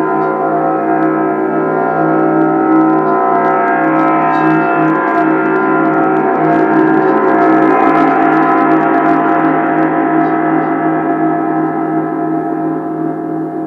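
A gong ringing in a dense, sustained wash of many overtones with slow beating, swelling with a high shimmer in the middle and easing off near the end.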